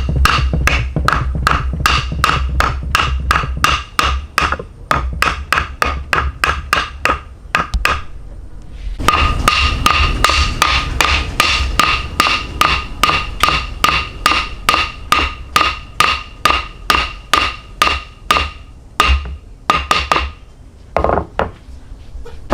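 Hammer blows struck in quick, even succession, about four a second, each with a metallic ring. They stop for about a second near the middle, then carry on, and end with a few last strikes.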